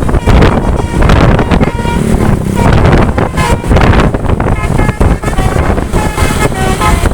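Basuri telolet horn on a tour bus playing a tune of short tones that step up and down in pitch, starting about two seconds in and running on from about three seconds. Heavy wind buffeting on the microphone and a low road and engine rumble lie under it.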